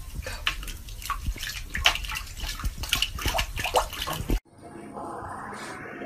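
Water splashing and sloshing in a bathtub: many quick small splashes and drips, cutting off suddenly about four seconds in.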